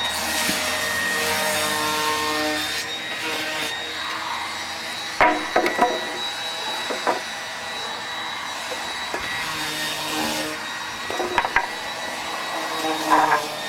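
Sanding of wood, a continuous scratchy rubbing, with a few sharp knocks about five seconds in and again near the end.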